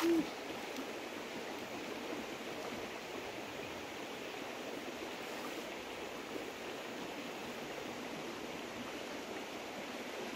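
Steady rush of a shallow river running over stones. A short pitched sound right at the start is the loudest moment.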